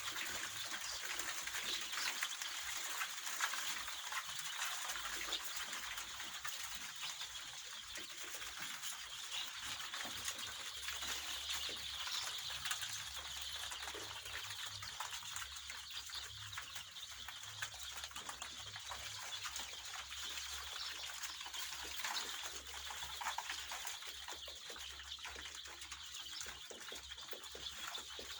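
A flock of poultry birds calling and chirping over one another in a steady, continuous din.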